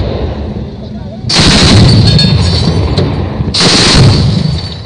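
ZU-23-2 twin-barrelled 23 mm anti-aircraft autocannon firing in bursts. A long burst starts about a second in and a shorter one comes near the end, each a dense rapid stream of shots with a rumbling echo trailing off after it.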